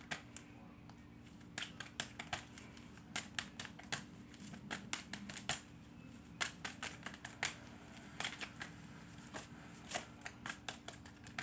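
Tarot deck being shuffled by hand: a long run of quick, irregular card slaps and flicks.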